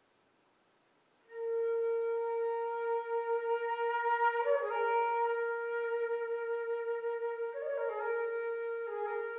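Solo flute starts about a second in on a long held note in the middle register. The note is ornamented a few times with quick grace-note flicks before it settles back on the same pitch.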